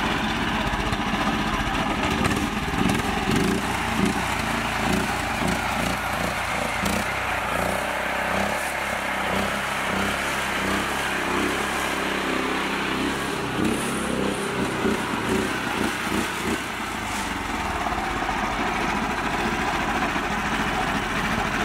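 Small engine of a mini tractor running steadily as the tractor is driven through mud.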